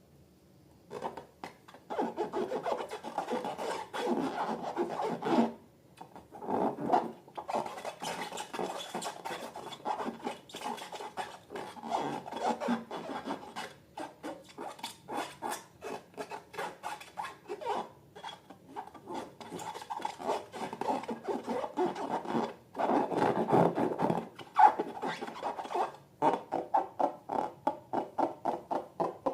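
Slime being worked by hand or stirred: dense sticky crackling and squishing in spells with short pauses.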